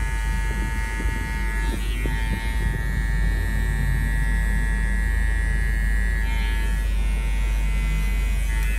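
Electric hair clippers running steadily as they cut around the ear and sideburn, a continuous buzzing hum whose tone wavers briefly about two seconds in and again after six seconds.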